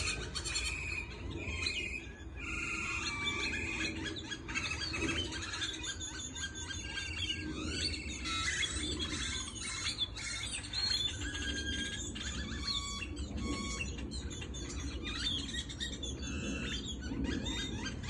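A large flock of small birds chirping together, many short overlapping chirps and whistles with no break, over a steady low background hum.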